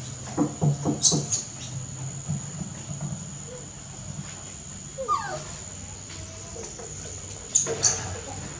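Baby monkey whimpering and squeaking: a few short calls about half a second in, then a squeal that slides up and back down around five seconds in. Two sharp clicks come near the end.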